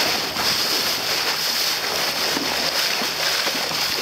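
Steady rush of seawater along the hull of a moving inflatable boat.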